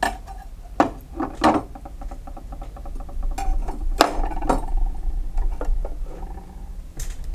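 Knives being handled and set down on a hard surface: several sharp clicks and clinks, with a longer scrape in the middle.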